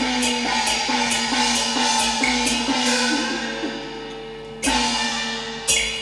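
Cantonese opera instrumental ensemble playing the introduction, with bowed Chinese fiddles. Even percussion beats come about three a second over held string notes, then a long held note, and two loud ringing percussion strikes about a second apart near the end.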